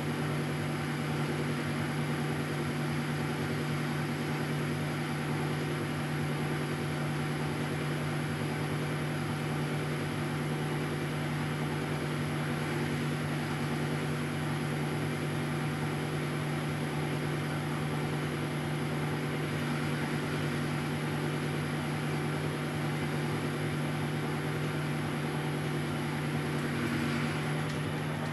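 Weiler Matador SV lathe running steadily at 600 rpm under power feed, its carbide roughing insert turning down the outer diameter of a round bar 1 mm deep. A constant machine hum with steady tones.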